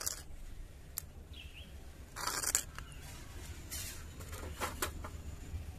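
Metal spoon scraping and clicking against a clay bowl and a stainless-steel bowl as a thick green chilli and coriander paste is scooped onto raw chicken. A short scrape about two seconds in is the loudest sound, with single sharp clicks about a second in and near the five-second mark.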